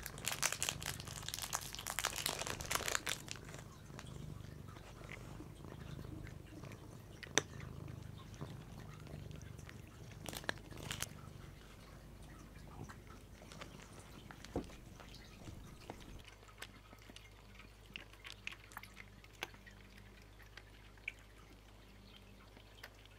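House cats eating a treat: quick, dense chewing and licking clicks for the first few seconds, then scattered smacks and clicks over a low steady hum.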